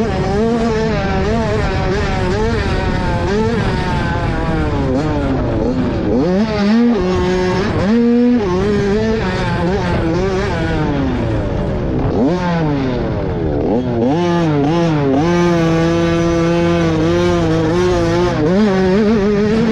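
Motocross dirt bike engine at racing speed, its pitch climbing and dropping repeatedly as the rider works the throttle and shifts gears. It holds a steady note for a few seconds past the middle and climbs again near the end.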